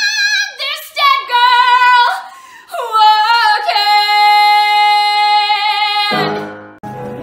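A woman singing solo without accompaniment, belting high sustained vowel notes with sharp breaks between phrases, then holding one long steady note for about two seconds. Near the end the sound cuts to a quieter recording of music.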